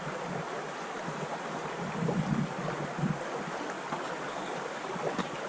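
Steady rushing of river water over rapids, with a few soft low bumps about two and three seconds in.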